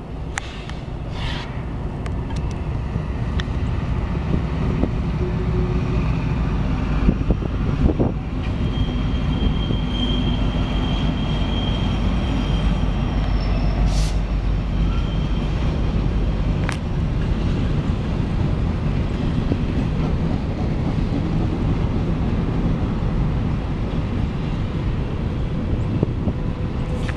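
Freight train passing: two Norfolk Southern diesel locomotives followed by a long string of loaded woodchip hopper cars, rolling by with a steady low rumble and clatter. A thin high squeal from the wheels on the curve rises about a third of the way through and holds for several seconds.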